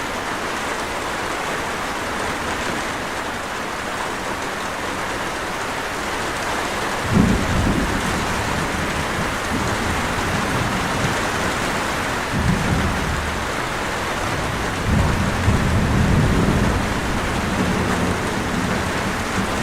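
Steady rain falling, with thunder: a low rumble breaks in suddenly about seven seconds in and rolls on, swelling again twice later.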